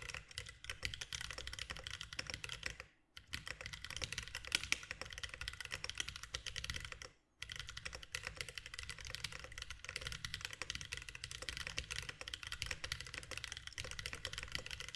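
Fast continuous typing on a Mechmini 2 40% ortholinear mechanical keyboard with Holy Panda tactile switches lubed with Tribosys 3203 and GMK keycaps: a dense run of keystrokes, with two short pauses, about three seconds in and about seven seconds in.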